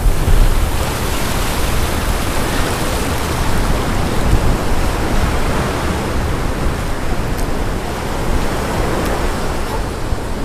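Ocean surf washing up the beach: a steady rushing of foaming water, with a low rumble underneath.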